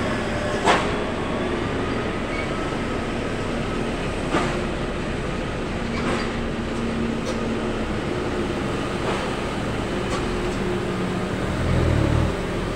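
Heavy diesel trucks running slowly through a tight hairpin bend, one after another: a steady low engine rumble with a few sharp knocks, and a louder low engine swell near the end.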